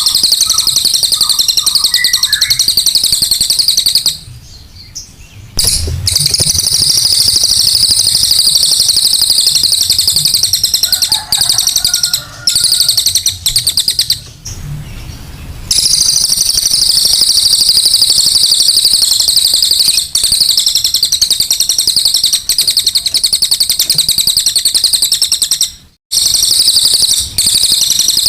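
A small songbird's harsh, rapid chattering song, the 'rough-voiced' (kasaran) kind of song used as a lure recording to draw out other birds. It runs almost nonstop, with a few short breaks, one of about a second and a half near the start and another near the middle.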